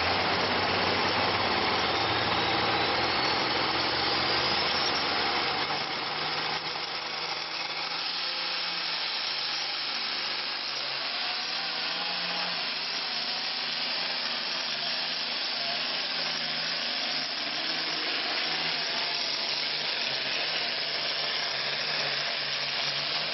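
Turbocharged diesel pulling tractor's engine running flat out as it drags a weight-transfer sled, a loud steady noise with a high whine rising over the first few seconds.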